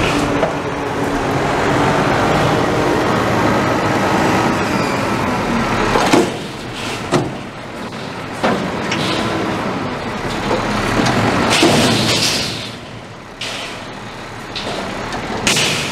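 McNeilus front-loader garbage truck's engine and hydraulic lift arms running as the forks raise a dumpster over the cab and tip it into the hopper. About six seconds in, a series of separate loud metal bangs starts and runs on to the end as the container empties.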